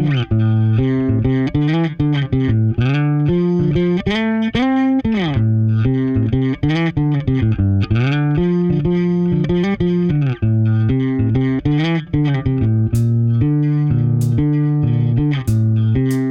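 Instrumental rock music: guitar and bass guitar playing the intro riff, with drum hits coming in near the end.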